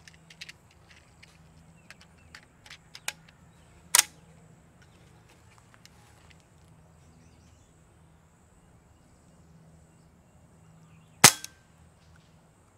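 Benjamin Marauder semi-automatic .22 PCP air rifle: a few small handling clicks and one louder click about four seconds in, then a single shot near the end, a sudden crack with a short tail. The report comes from the hammer striking the valve, with the factory baffled shroud quieting the muzzle.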